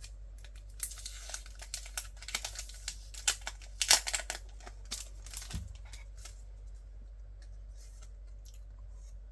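Plastic packaging being crinkled and torn open by hand: a run of quick crackles over the first six seconds, loudest about four seconds in.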